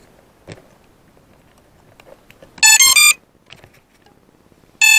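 FPV quadcopter motors sounding their electronic beeps before takeoff: a short run of stepped tones about two and a half seconds in, then one longer steady beep near the end.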